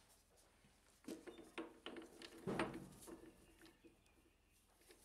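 Faint metallic clicks and knocks as an aluminium bar is handled and seated in a three-jaw lathe chuck with the chuck key in place. The loudest knock comes about two and a half seconds in and rings briefly.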